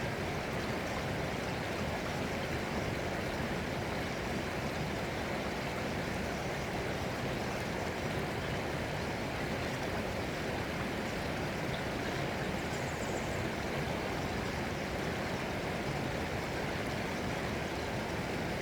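Running water, flowing steadily with an even rushing sound.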